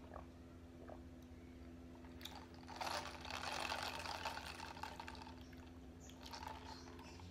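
Plastic cup of brown sugar boba milk tea with a straw being sipped and handled: about three seconds in, two seconds of crackly liquid noise, over a steady low hum.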